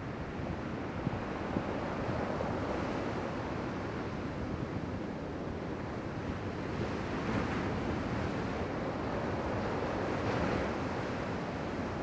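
Steady rushing noise of wind and water, swelling a little about seven and again about ten seconds in.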